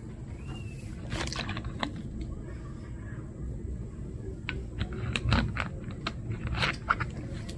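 Irregular clicks, knocks and scrapes of small objects being handled, over a steady low background noise.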